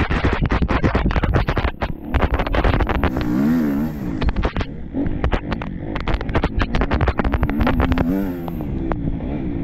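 Enduro motorcycle engine with the revs rising and falling over and over as the throttle is worked, mixed with many sharp knocks and clatters.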